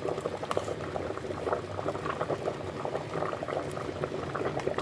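Coconut and quail soup bubbling in an open pressure cooker, a steady stream of small irregular bubble pops just off the boil.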